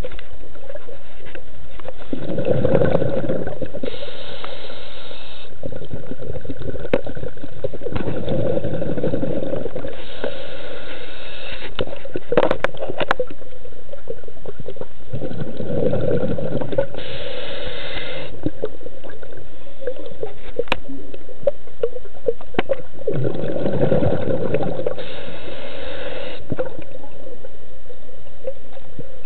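Scuba diver breathing through a regulator underwater: about every seven seconds a burst of exhaled bubbles burbling, then the hiss of an inhale, four breaths in all. A few sharp clicks about twelve seconds in.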